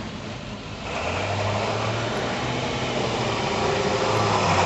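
An engine running: a steady low hum with a broad hiss over it, which comes in about a second in and grows steadily louder.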